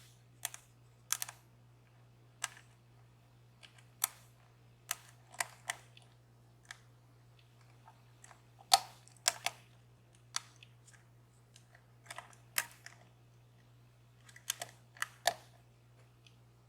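Lock pick and tension tool working in a DOM Plura lock cylinder: sharp, irregular clicks, roughly one to two a second, the loudest about halfway through. A faint steady low hum runs underneath.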